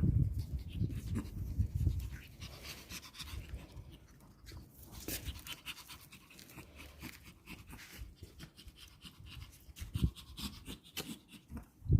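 A six-week-old chihuahua puppy's small sounds close to the microphone: quick breathing among soft scratches and clicks. Heavier low thumps fill the first two seconds, and there is a sharper knock about ten seconds in and another at the very end.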